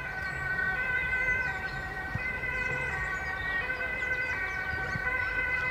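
Two-tone emergency-vehicle siren, switching back and forth between two pitches less than a second apart.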